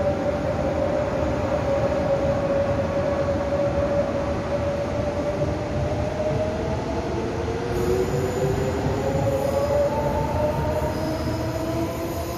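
Taiwan Railway electric multiple unit pulling away from the platform. Its traction motors give a steady whine that, from about halfway, splits into several tones rising in pitch as the train gathers speed, over the noise of the wheels on the rails.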